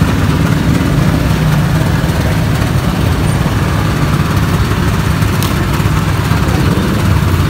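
Sugarcane juicing machine's motor running steadily as sugarcane stalks are fed through its crushing rollers.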